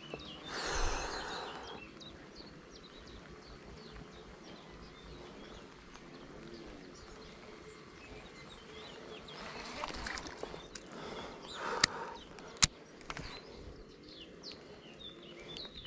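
Quiet outdoor ambience with faint, scattered bird chirps. A short rustle comes near the start, and two sharp clicks come about twelve seconds in.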